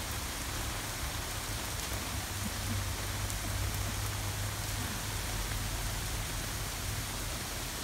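Steady rain falling on a lawn and wet concrete pavement, an even hiss with no breaks.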